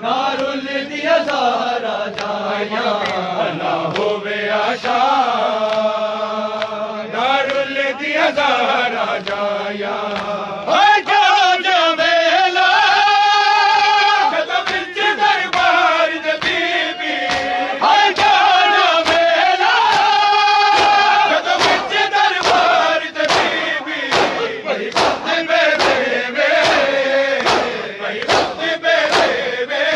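A crowd of men chanting a noha (Shia lament) in unison, with rhythmic matam: hands slapping on bare chests about twice a second, strongest in the second half.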